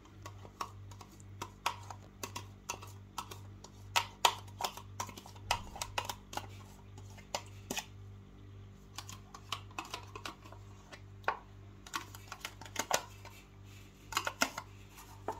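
Spoon clicking and scraping against plastic as yogurt is spooned onto raw beef pieces in a plastic container: irregular light taps, some louder than others. Underneath runs a low hum that pulses about three times a second.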